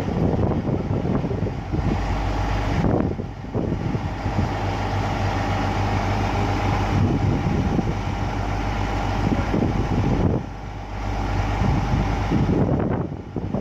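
Heavy diesel engine of a Caterpillar excavator running steadily at working revs, with a constant low hum that eases briefly twice, about three and ten seconds in.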